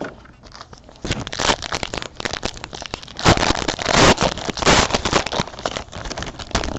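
Plastic trading-card pack wrapper being torn open and crinkled by hand: a dense crackling that starts about a second in.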